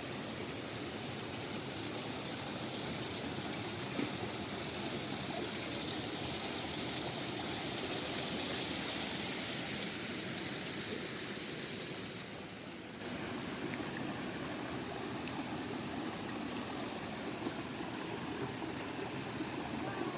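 Steady rush of water from a small forest waterfall and stream, with an abrupt shift in its tone about thirteen seconds in.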